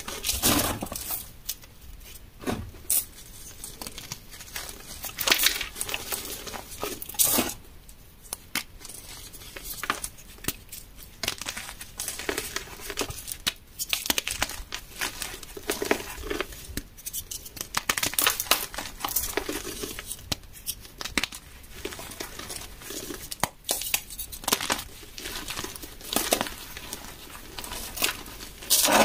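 Bare hands crushing and crumbling chunks of dyed chalk into powder: irregular crunches and crackles, with soft gritty rustling between them.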